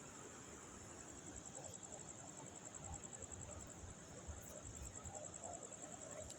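Crickets trilling at night: a faint, steady, high-pitched pulsing trill, over a low rumble.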